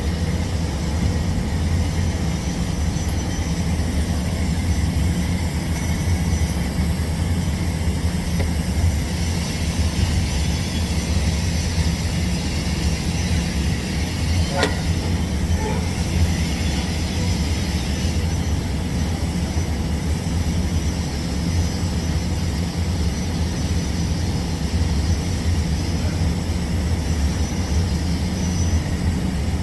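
TIG welding on pipe: a steady low hum with an even hiss over it. One faint click about halfway through.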